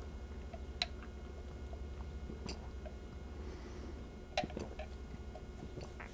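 Faint mouth sounds of a person sipping juice through a straw and swallowing, with a few soft clicks spaced out over a low steady hum.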